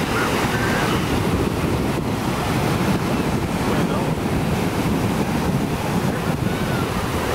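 Ocean surf breaking and washing in over shallow sand, with wind buffeting the microphone.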